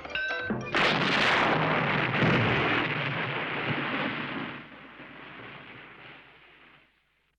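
Cartoon explosion sound effect: a sudden loud blast about a second in, a second blast a little after two seconds, then a long rumble that dies away. Short plucked music notes play just before the first blast.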